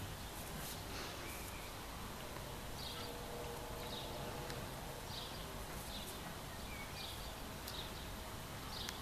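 Da Bird feather-wand cat toy fluttering in short, light swishes, roughly once a second, as it is waved.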